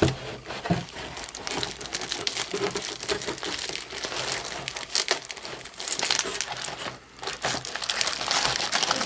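Clear plastic wrapping crinkling and rustling as a flat TV antenna sealed in it is handled and lifted out of its cardboard box. The sound is a run of irregular crackles, with a brief lull about seven seconds in.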